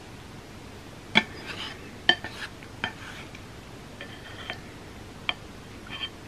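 Eating utensils clinking and scraping against a dish of food: several sharp clinks, some with a brief ring, between softer scrapes.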